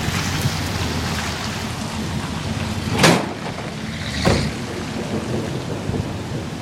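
Thunderstorm wind blowing hard across the microphone as a steady rushing noise, with two sharp gusts buffeting it, about three and four seconds in.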